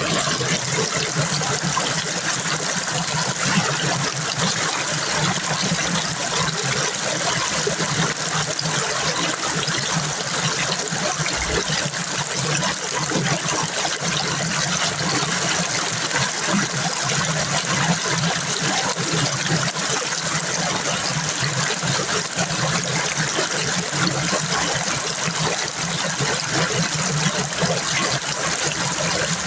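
Running water of a creek, a steady rush without a break.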